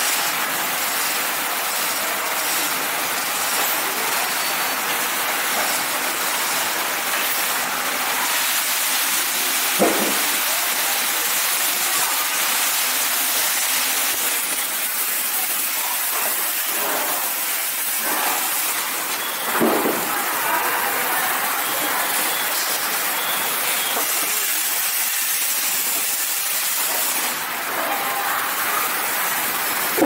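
Steady hissing background noise of a factory workshop, with two brief knocks or handling bumps about ten and twenty seconds in.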